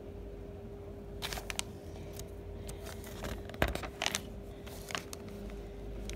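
Glossy magazine pages rustling and being turned by hand, a handful of short crinkles and handling clicks with the sharpest about halfway through, over a faint steady hum.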